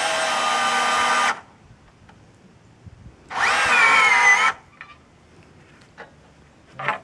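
Cordless drill motor whining as it drives a fastener into a wooden rafter: one run stops about a second in, and a second run of about a second sags in pitch as it loads up before stopping. The speaker doubts the battery can do the job. A few light knocks follow.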